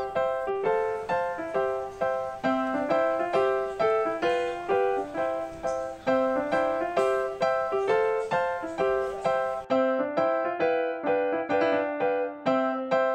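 Background music: a light piano or keyboard tune, a steady run of notes in a short phrase that repeats every few seconds.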